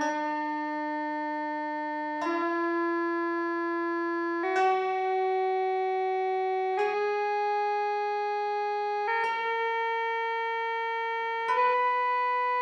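Synthesizer stepping up a just-intonation scale one held note at a time, changing pitch about every two and a quarter seconds, each note starting with a slight attack. A faint steady low tone sits underneath.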